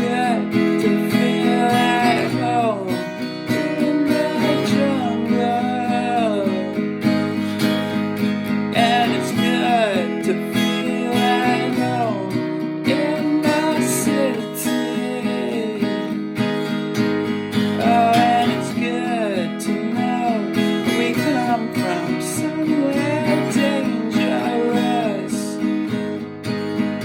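Instrumental break of a rock and roll song: acoustic guitar strummed in a steady rhythm, with a lead melody line over it that slides and bends in pitch.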